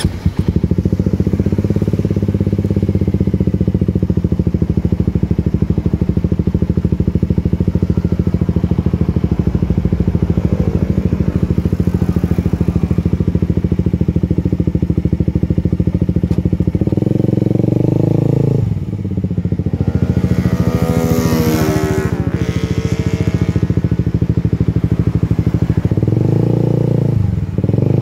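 Suzuki GSX-S150's single-cylinder engine idling with a steady, even firing beat. About two-thirds of the way through, the revs rise and fall a few times, the highest rev climbing to a sharp whine. Near the end the revs dip and climb again as the bike pulls away.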